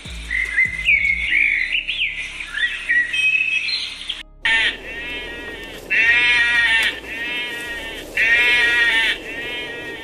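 Sheep bleating: several long, wavering bleats one after another, starting about four seconds in after a brief drop-out. Before that, high chirping bird calls that slide up and down in pitch.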